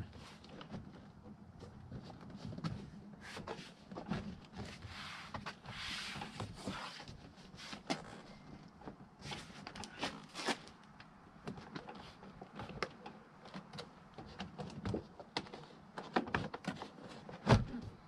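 Plastic interior door trim panel of a Dodge Ram being fitted back onto the door: scattered clicks, knocks and rubbing as its clips are pushed into place, with one sharper click near the end.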